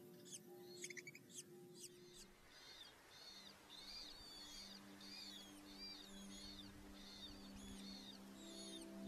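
Faint, high-pitched bird calls. Quick sweeping notes come first, then from about three seconds in a string of arched notes about twice a second. Under them is soft background music with sustained low notes.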